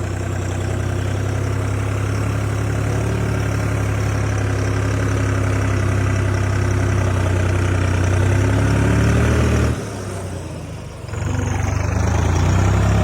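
New Holland 3630 tractor's diesel engine running steadily as it drives off, slowly getting louder. About ten seconds in it drops off suddenly for a second or so, then picks up again.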